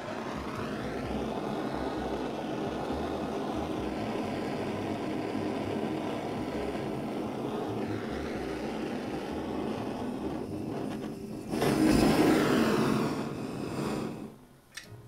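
Kitchen blowtorch flame running with a steady rushing hiss as it scorches marshmallow meringue. It grows louder for a couple of seconds near the end, then stops.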